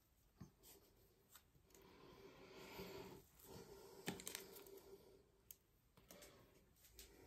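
Faint crinkling and tearing as a foil alcohol swab packet is pulled open by hand, with a few sharp clicks about four seconds in.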